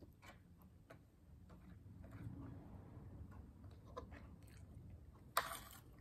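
Quiet close-up chewing of a mouthful of rice and meat, with small wet mouth clicks scattered throughout. A single brief, louder clatter comes a little over five seconds in.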